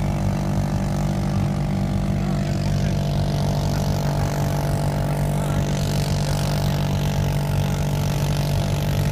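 Snowmobile engine running steadily at an even pitch while towing an inflatable raft full of skiers, with a hiss over it that grows louder from about three seconds in.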